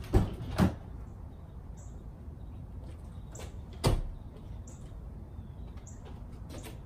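Three sharp knocks of parts and tools being handled during work on a car's tail lights: two close together at the start and one about four seconds in, over a faint steady background.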